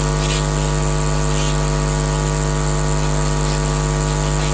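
Steady electrical mains hum from the lecture's sound system: a buzz made of many evenly spaced tones, unchanging throughout. A few faint bits of whispering come through, as the prayer is recited under the breath.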